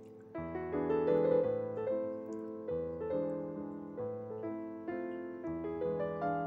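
Background piano music: a slow melody of struck notes, each fading away after it is played.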